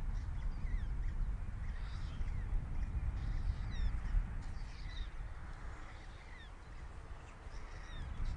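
Short, high, falling bird call notes repeating every second or so over a steady low rumble of wind on the microphone.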